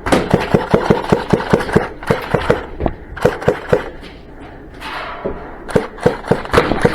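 Airsoft gunfire: a fast string of shots, about eight a second, for the first couple of seconds, a shorter burst about three seconds in, then scattered single shots near the end.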